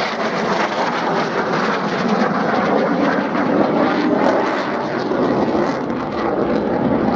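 Fixed-wing aircraft engine noise, steady, as an airplane flies in a display.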